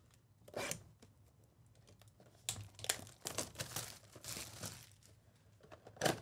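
Trading-card pack wrappers being torn open and crinkled in hand: a short rip about half a second in, then a run of irregular crackles and rustles, and one sharp crinkle near the end.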